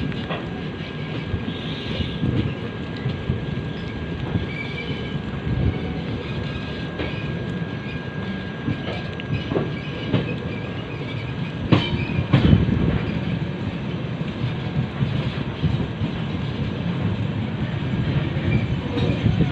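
Passenger train running on the rails: a steady rumble of the wheels with clacking over rail joints, and a couple of louder knocks about twelve seconds in.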